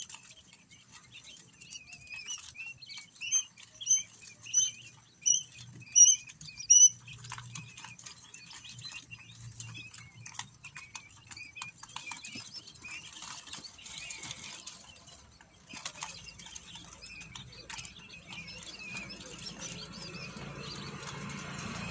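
Quail chicks peeping and chirping, with a run of about seven loud, evenly spaced peeps, roughly one every two-thirds of a second, between about three and seven seconds in, then softer chirping mixed with scattered light ticks. A hissing noise builds near the end.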